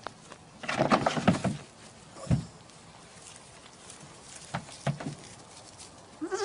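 A flurry of knocks and scuffling, a single thud, then a few softer knocks. Right at the end a wavering animal call begins.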